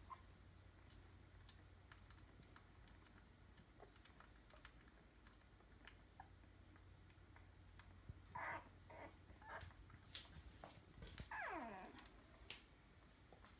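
Faint squeaks from week-old Entlebucher Mountain Dog puppies: a few short squeaks about two-thirds of the way in, then one longer whimper that falls steeply in pitch, over near silence with small soft clicks.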